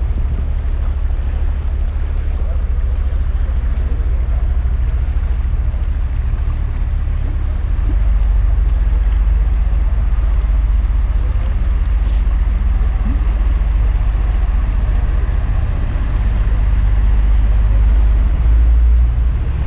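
Swollen river in flood rushing steadily, under a heavy low rumble that gets louder about eight seconds in.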